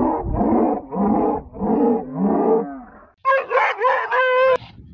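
Shikari hunting dog growling and snarling in a run of short, rough pulses as it lunges to bite, then breaking into sharper, higher barks about three seconds in.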